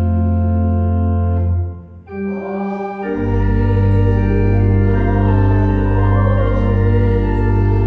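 Church organ playing sustained chords over a deep pedal bass. The chord releases about two seconds in, the upper notes come back at once, and the bass re-enters about a second later.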